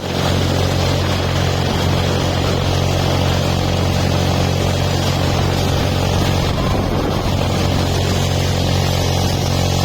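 An engine running steadily with an unchanging low drone.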